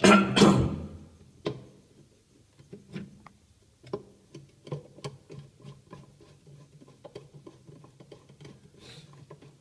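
A loud clatter in the first second, then a run of small rapid clicks, about five a second, as a hand screwdriver turns the centre screw that fastens the pulsator of a Sanyo top-loading washing machine.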